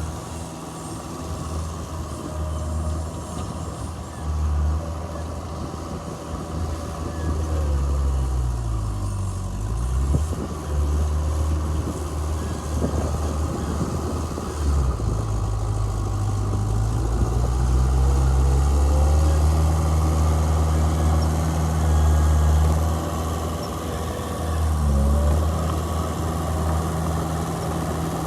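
Heavy diesel engine of earthmoving machinery running steadily. Its speed falls off about nine seconds in, picks up again around fifteen seconds, and dips briefly near the end.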